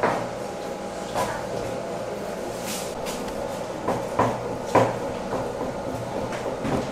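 Kitchen clatter at a food stall: a few scattered knocks, the clearest about a second in and twice between four and five seconds in, over a steady hum, with a short hiss near three seconds in.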